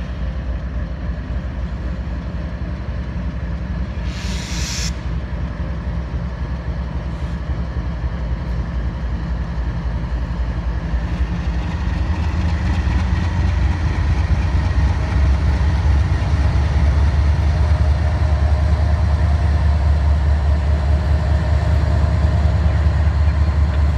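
Diesel locomotives of a CSX freight train passing slowly, a steady low engine rumble that grows louder about halfway through as the trailing units come alongside. A brief hiss sounds about four seconds in.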